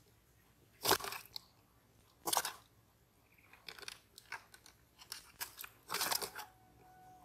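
Close rustling handling noise: three short, loud scrapes, about a second in, near two and a half seconds and at six seconds, with lighter clicks and rustles between them.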